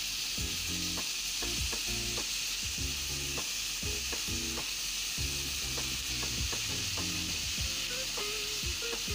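Shredded carrots, zucchini and onion sizzling in oil in a large metal pan while being stirred and tossed with a silicone spatula: a steady sizzle with frequent knocks and scrapes of the spatula against the pan.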